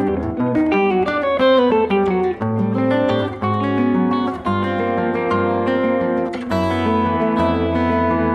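Acoustic guitar music: a line of plucked notes with a falling run about two seconds in over held bass notes, ending on a ringing chord.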